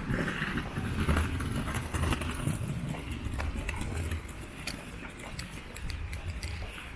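Footsteps of a person walking along a park path, with a low rumble through the first four seconds.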